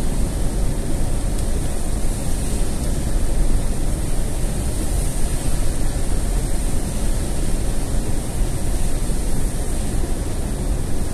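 Steady rumble and hiss heard inside a moving car in heavy rain: tyres running on the wet road and rain on the roof and windscreen.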